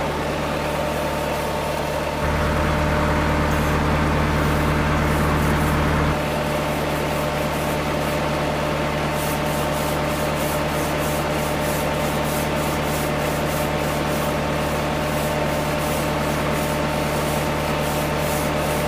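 Scrubbing brush rubbing back and forth over the wet woven webbing of a charpai, with distinct scratchy strokes about two to three a second in the second half. Underneath, a tubewell pump runs with a steady hum and water gushes from its outlet into the tank.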